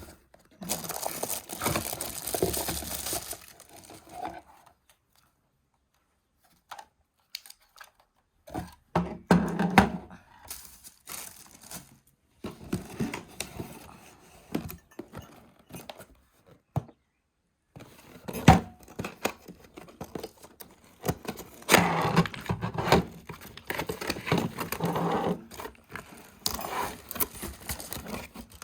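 Packaging being handled and opened during an unboxing: crinkling and tearing with scattered knocks and clicks, in irregular bursts broken by a few silent gaps.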